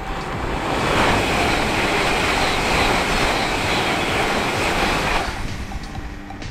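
LNER Hitachi Class 800 Azuma high-speed train passing at speed: a rushing noise of wheels and air that builds about a second in, holds for about four seconds, then fades away.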